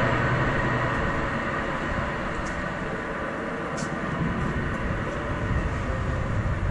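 Wind buffeting the camera's microphone on an outdoor walk: an uneven low rumble with faint hiss. A low hum fades out about a second in, and there are a couple of faint ticks.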